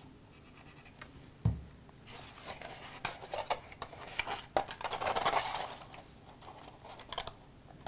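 Stiff cardstock pieces handled and pressed together by hand: papery rustling and scraping with small clicks, loudest in the middle. About a second and a half in there is a single dull thump, the plastic glue bottle set down on the wooden table.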